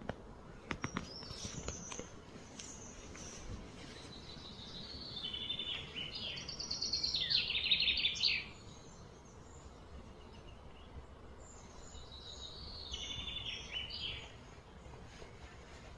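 A bird singing outdoors: a stepped, chirping phrase that builds into a rapid trill about five seconds in, then a softer repeat of the phrase near the end, over steady outdoor ambience.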